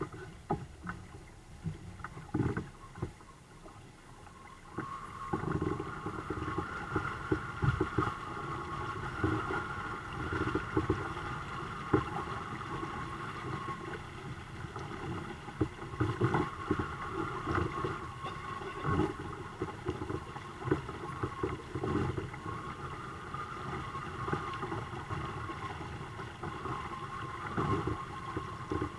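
Water rushing and slapping against the hulls of a two-kayak sailing catamaran under way, with irregular small splashes and knocks; it grows louder about five seconds in.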